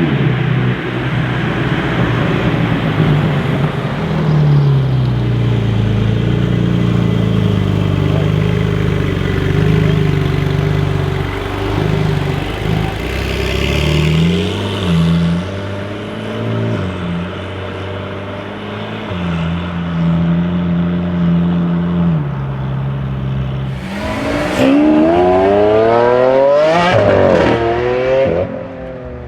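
Porsche 992 Carrera S's twin-turbo flat-six engine driving, its pitch stepping up and down with gear changes and holding steady for stretches. Near the end it accelerates hard, revving up several times in quick succession, the loudest part.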